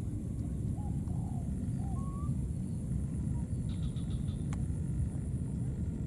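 Steady low rumbling outdoor background noise, with a few short, faint squeaks that rise and fall about one to two seconds in and a single click later on.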